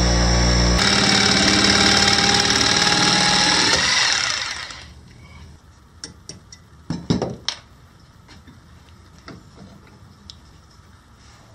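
Bench grinder running, switched off about a second in and winding down until it fades out around five seconds in. It is followed by a handful of sharp knocks from a hammer at a steel bench vise, the loudest about seven seconds in.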